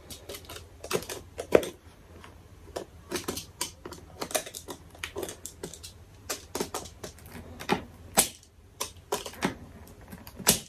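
Irregular clicks, ticks and scratches of a stubborn cardboard box being picked and prised at by hand to get it open.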